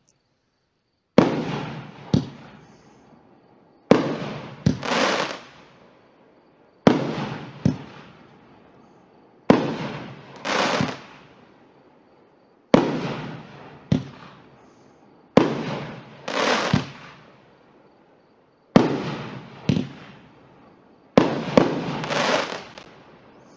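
Consumer firework display cake firing single shots about every two and a half to three seconds, eight in all. Each shot is a sharp launch thump followed about a second later by the louder break of the shell, then a short crackling tail.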